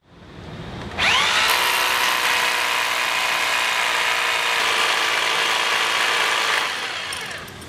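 Corded rotary hammer drilling down into a concrete slab to make a hole for a drop-in anchor. The motor spins up with a rising whine about a second in, runs steadily for about five and a half seconds, then winds down near the end.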